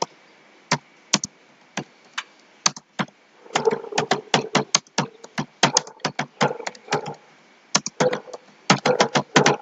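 Computer keyboard being typed on: a few separate keystrokes at first, then quick runs of keystrokes from about three and a half seconds in, with a brief pause about three-quarters of the way through.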